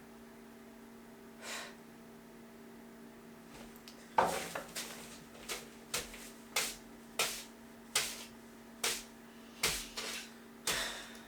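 A run of about a dozen sharp taps or knocks, roughly one every half-second to two-thirds of a second, starting about four seconds in, over a steady low electrical hum.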